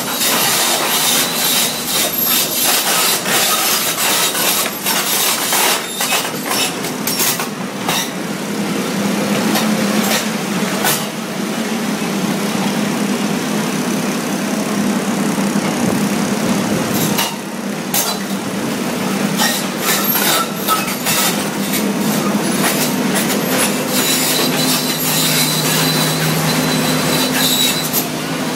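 Demolition of a concrete building by an excavator fitted with a hydraulic breaker. The machine's engine runs steadily under load, while concrete cracks, crashes and falls as rubble in irregular bursts.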